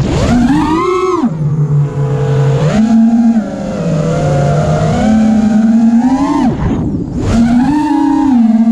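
Armattan Rooster FPV quadcopter's brushless motors whining in flight, the pitch rising and falling with the throttle. It climbs quickly in the first second, drops low, steps back up around three and five seconds in, falls briefly near six and a half seconds, then climbs again.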